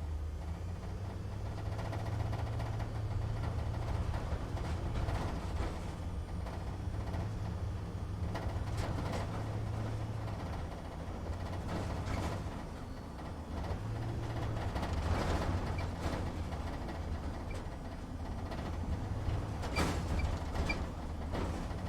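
Truck interior recording: the engine runs with a steady low drone as the truck drives slowly, with rattles and knocks in the cab scattered throughout.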